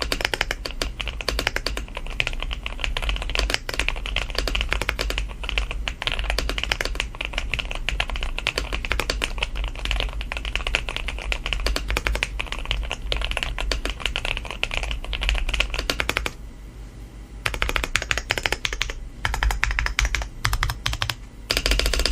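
Typing demo on a Keychron Q5 aluminium 98-key mechanical keyboard modded with a PC plate, sandwich foam and a plastic middle frame: rapid, continuous keystrokes. The typing stops for about a second roughly three-quarters of the way through, then resumes.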